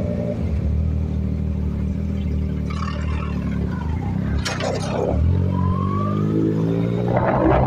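Yamaha MT-09 motorcycle's three-cylinder engine running as the bike rides along a street. The engine note holds and eases, drops in pitch a little past the middle, then rises near the end as the bike accelerates.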